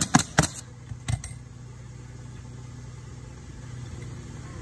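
Pneumatic coil roofing nailer driving nails into asphalt shingles: three quick shots in the first half second and two more about a second in. A steady low motor hum runs underneath.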